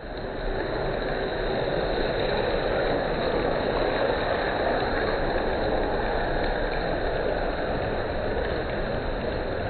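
Steady rain falling, an even rushing hiss with no breaks.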